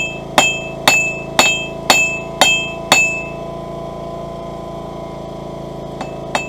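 Hand-hammer blows on a hot steel bar on an anvil, flattening its end, about two a second, each with a bright ringing tone. The blows stop about three seconds in, leaving a steady hum, and a few lighter taps come near the end.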